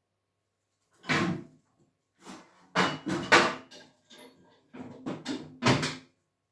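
A series of clunks and knocks from the cast-iron wood stove being handled while the fire is laid: its door worked and fuel set inside, with a few louder knocks near the middle and end.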